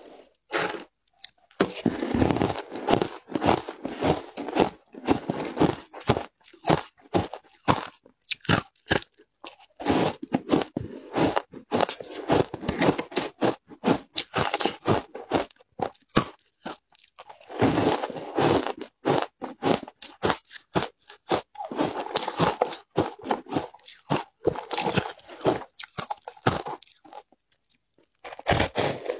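Matcha shaved ice being bitten and chewed, making dense runs of sharp crunching with short pauses about halfway through and again near the end.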